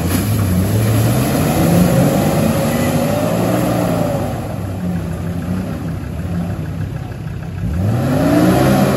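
Jeep Wrangler engine revving under load as it is driven through a deep mud rut, its pitch repeatedly rising and falling. Near the end it gives a sharp climb in revs.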